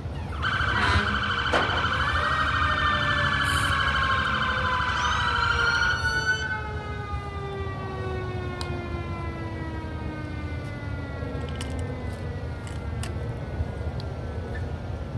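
Emergency vehicle sirens sounding together, a wavering wail over steady tones, for about six seconds. They are then switched off, and the pitch slides slowly down over the next several seconds as a siren winds down.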